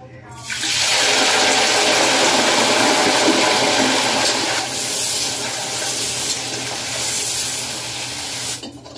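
Cauliflower and potato pieces tipped into hot oil in a steel kadhai, sizzling loudly. The sizzle starts about half a second in and cuts off suddenly shortly before the end.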